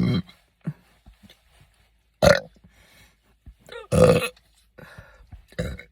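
A person burping and hiccuping: several separate loud bursts, the longest about four seconds in, with short sharp ones before and after.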